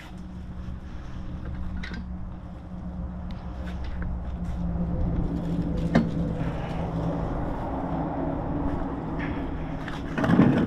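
A motor vehicle engine running steadily nearby, growing louder through the middle and easing off, with a sharp knock about six seconds in and a louder clatter near the end.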